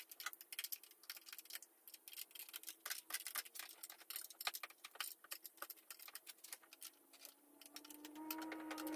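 Faint, irregular metallic clicks and ticks of a wrench working the fittings of a diesel engine's high-pressure fuel injection lines. A faint steady hum comes in near the end.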